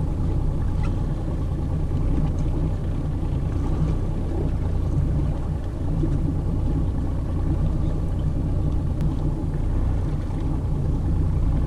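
Boat engine idling, a steady low rumble.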